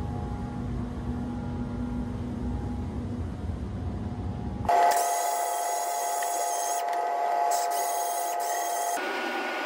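A steady low rumble of air from a paint booth's extraction, then an abrupt change about halfway through to a random orbital sander running with a steady high whine, sanding the painted mudguard ready for polishing. Near the end a different steady whir takes over.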